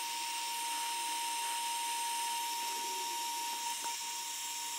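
The handle fan of a JCD 8898 hot air rework gun blowing at raised speed with a steady whine over a rush of air. This is the gun's automatic cool-down mode after it is docked in its stand: the heater is off and the fan cools the heating element.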